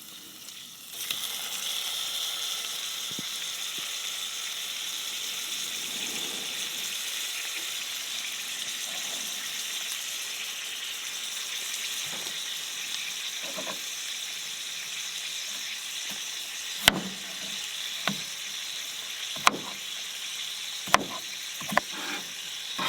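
Food sizzling steadily in a frying pan on a camp stove, starting about a second in. In the last few seconds a few sharp knocks break in over the sizzle.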